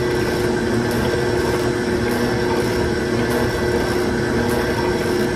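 Electric juicer running steadily as it juices produce, a constant motor hum with a faint pulse repeating about once a second.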